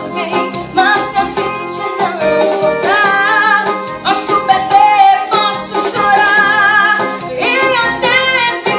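A woman singing a slow song with vibrato on held notes, accompanied by a Yamaha electronic keyboard played with both hands.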